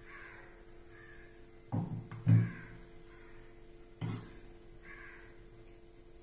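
A steel spoon knocks three times against steel dishes while chutney is served onto a steel plate, the loudest knock about two seconds in. Crows caw several times in the background over a faint steady hum.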